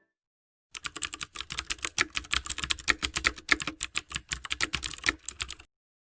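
Keyboard typing: a fast, uneven run of key clicks that starts about a second in and stops abruptly near the end.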